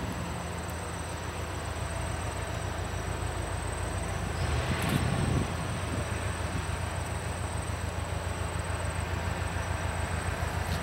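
Two EMD 16-cylinder two-stroke diesel locomotives, an SD40-2 and an SD40-3, running as they approach at low speed, a steady low engine drone that grows slowly louder. A brief louder rushing swell comes about halfway through.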